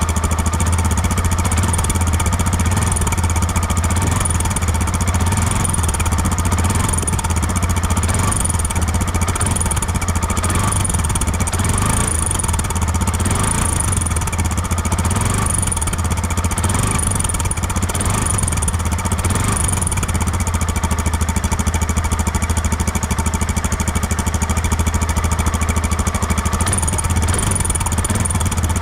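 Vehicle engine idling steadily, with an abnormal noise from the exhaust pipe: a high hiss that swells and fades about once a second over the steady low running note.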